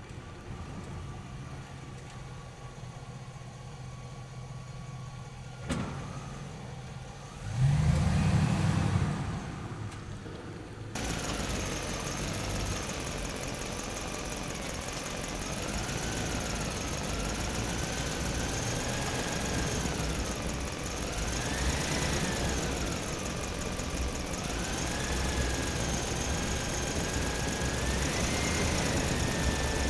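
Small electric motors of radio-controlled construction models whining, the pitch rising and falling as they speed up and slow down. A loud low thump comes about eight seconds in.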